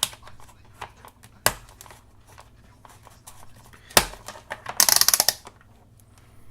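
A few separate knocks from handling, then a quick run of crisp clicks from a multimeter's rotary selector dial being turned through its detent positions, heading for the lowest ohms setting.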